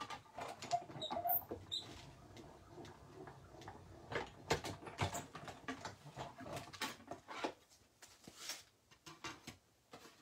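Manual die-cutting machine being hand-cranked, pulling a stack of cutting plates, cardstock and metal dies through its rollers: a run of irregular clicks, creaks and knocks that thins out near the end as the plates come through.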